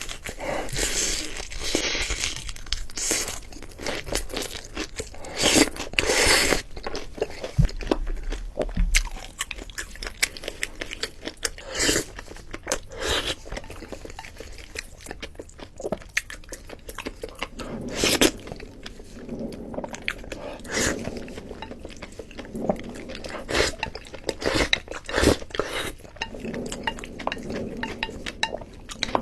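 Close-miked ASMR eating: a person biting and chewing crunchy food, with irregular loud crunches and wet mouth clicks.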